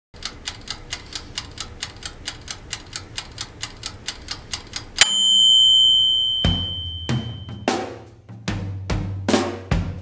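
A toaster oven's timer ticking evenly, about four ticks a second, then its bell dings once halfway through and rings on as it fades, the timer run out. A drum beat starts about a second and a half after the ding.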